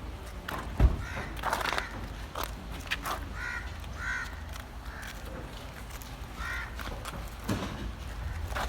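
A crow cawing several times in short arched calls, over scattered sharp knocks and clatter, the loudest knock about a second in.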